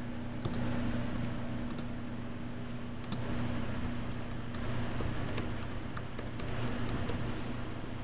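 Typing on a MacBook Pro's built-in keyboard: irregular key clicks in short flurries over a steady low hum.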